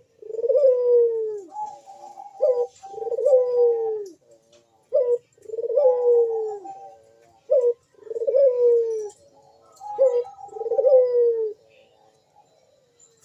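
Barbary dove (burung puter) cooing vigorously: five repeated phrases, each a short clipped note followed by a long falling coo, about every two and a half seconds, stopping shortly before the end.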